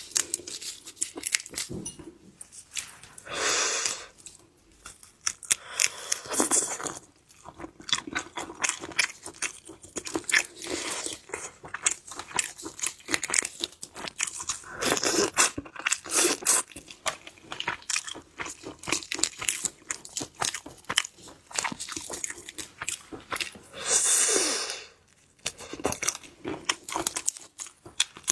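Close-miked eating of spicy stir-fried shrimp: shells cracking and crunching between the teeth, with chewing throughout. Several longer, louder noisy stretches are mixed in.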